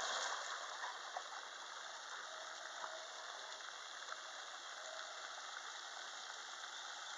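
A dog's splash into a pond, fading within the first half second, then a steady hiss of water while it swims out.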